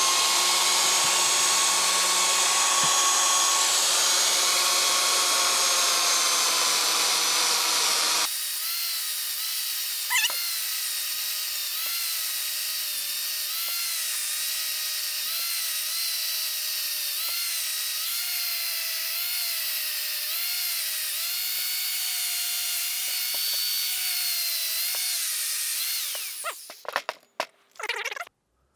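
Power tool driving a wire wheel against the steel stump-grinder shaft. A loud harsh scouring over a motor whine cuts off suddenly about eight seconds in. The motor then runs on with a whine whose pitch dips and rises under load, and winds down near the end with a few clicks.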